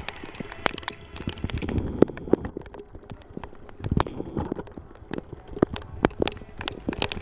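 Scattered applause: many irregular, sharp hand claps at uneven spacing, the loudest about two and four seconds in.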